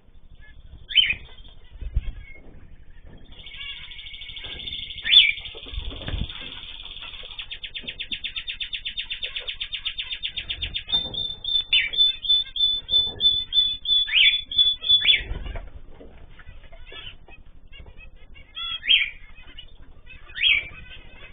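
Caged pet birds chirping, with wings fluttering and occasional low thumps. A few seconds in, a long rapid trill starts and runs for about eight seconds. It gives way to a run of sharp, repeated high calls, about two or three a second, that stop near the middle. Scattered chirps follow.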